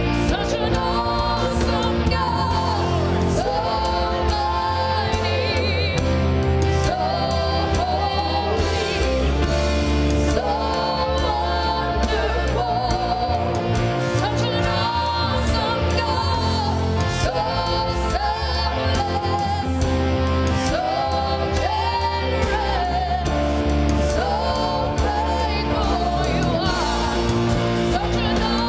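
Gospel worship song: voices singing a melody over full band accompaniment with a steady beat.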